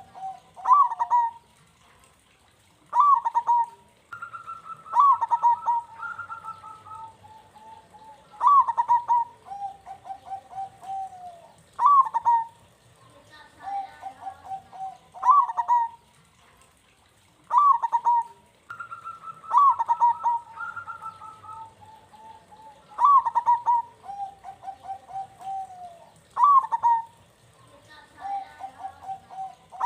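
Zebra dove (Javanese perkutut) cooing in a steady series of phrases, one every three to four seconds. Each phrase is a sharp opening note followed by a rolling run of lower notes.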